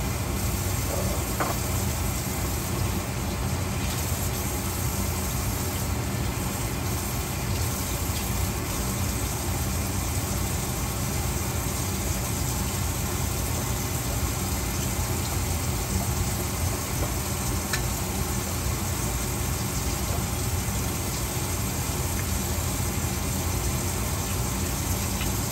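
Kitchen range hood fan running steadily over green beans frying in a pan on medium-high heat, a continuous sizzle over the fan's low hum.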